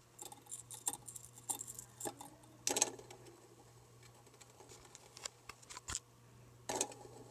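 Harbor Breeze Endia ceiling fan running on medium with a low steady hum, and scattered irregular clicks and taps throughout.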